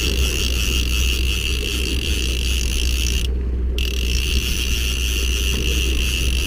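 Conventional saltwater fishing reel being cranked steadily as a hooked fish is reeled in, its gears turning, over a steady low rumble.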